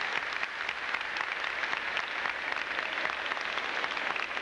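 Audience applauding: many people clapping steadily, a dense patter of claps throughout.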